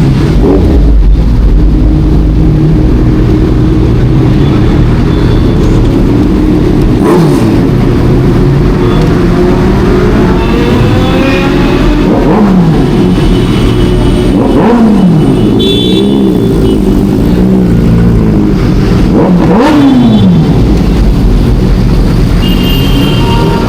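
Kawasaki Ninja 1100SX's inline-four engine under way on the road. The engine pitch falls and climbs again several times as the rider eases off and accelerates, over a heavy low rumble.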